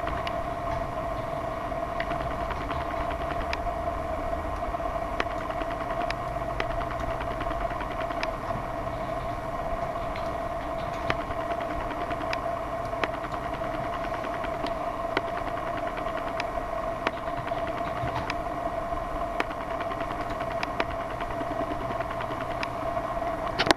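Steady mechanical hum with a constant pitched drone, broken by irregular sharp clicks.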